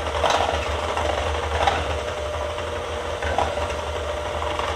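Electric hand mixer running steadily, its beaters whisking thin pumpkin pie filling in a stainless steel bowl, with brief louder surges about three times.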